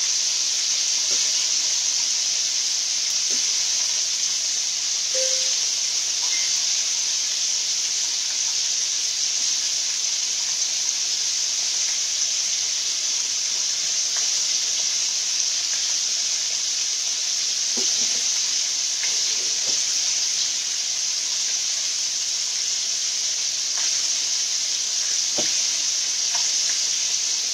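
Chicken tenders deep-frying in hot oil in a cast-iron skillet: a steady sizzle with an even hiss throughout, and a few faint clicks.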